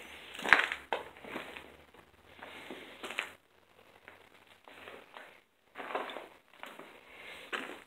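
Footsteps crunching over debris on a floor, an uneven step every second or so, with one sharp crack about half a second in.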